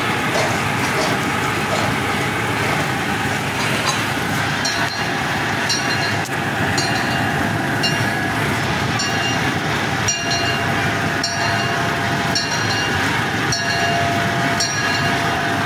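Miniature park train's open passenger car running along the track: a steady rumble with a regular click about once a second, and a faint steady whine joining about two-thirds of the way through.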